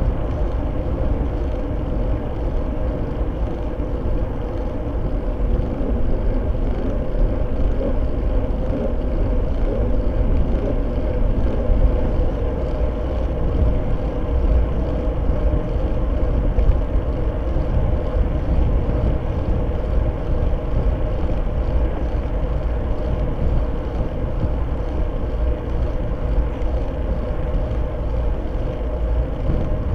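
Bicycle at race speed heard from a Fly6 rear-facing camera mounted on it: steady wind rush on the microphone with tyre and road rumble, unbroken throughout.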